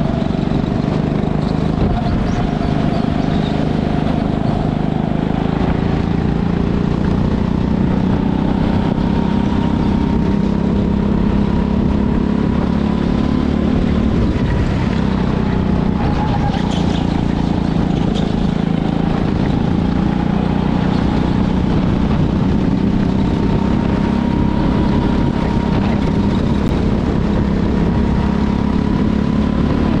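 Go-kart engine running steadily under load as the kart laps the track, heard from on board the kart. Its pitch rises and falls only a little through the corners and straights.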